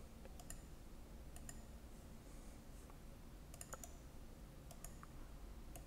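Faint, irregular clicking of a computer mouse, about a dozen clicks, with a quick run of several a little past halfway.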